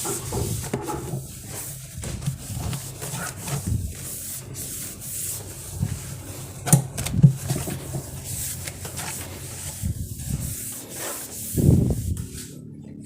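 Cloth wiping and drying the plastic inside of a refrigerator: continuous rubbing, with knocks and a couple of louder bumps.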